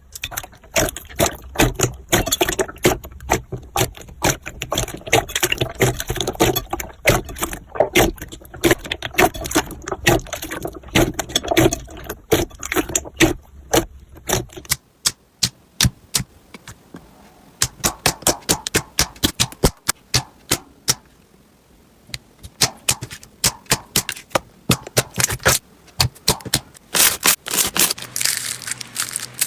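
Slime being squished and pressed by hand, making a rapid run of sharp clicks, pops and crackles. Past the halfway point the clicks turn sparser and quieter, then thicken again near the end.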